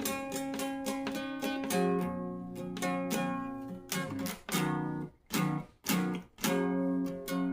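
Acoustic guitar playing: picked notes and strummed chords. Past the middle come a few short chords, each cut off sharply, with brief gaps between them.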